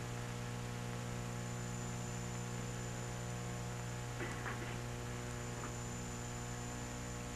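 Steady electrical mains hum on the recording, with a thin high-pitched whine above it. A few faint clicks come about four to five seconds in.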